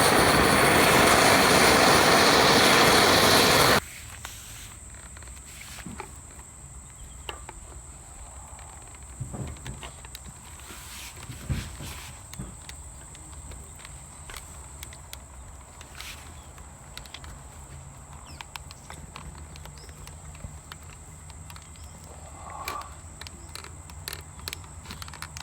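A gas torch flame makes a loud steady hissing rush that cuts off abruptly about four seconds in, most likely reheating the knife blade. Faint scattered clicks and crackles follow.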